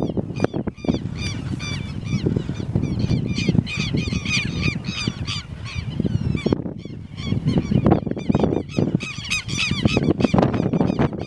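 Animals calling in rapid series of short, high-pitched, honk-like calls, in two bouts separated by a brief pause about six seconds in, over a steady low rumble.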